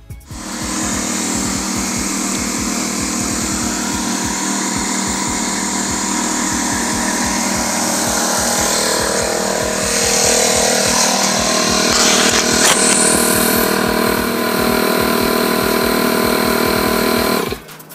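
Air compressor running steadily to supply air for inflating the tire and re-seating its bead; it cuts off abruptly near the end.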